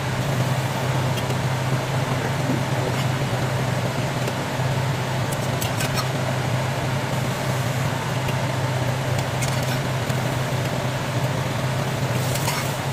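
Steady low hum under an even hiss, with a few faint clicks, like a fan or appliance running while pancakes cook.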